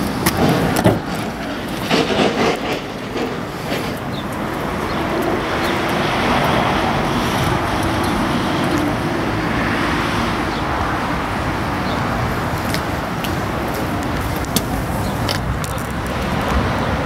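Steady outdoor traffic noise, an even rumble and hiss, with a few short knocks in the first couple of seconds.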